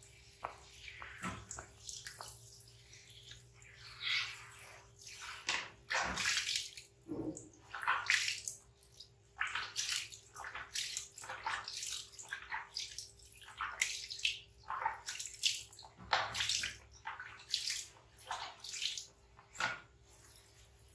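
Water splashing in irregular short bursts as a baby monkey is washed by hand.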